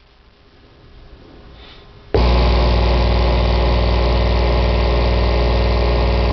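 Digital Design 9515 subwoofer wired directly to a household wall socket, buzzing loudly with mains hum. The buzz switches on about two seconds in and cuts off suddenly at the end. One of its two voice coils is already blown; the other is running hot enough to smell but is not failing.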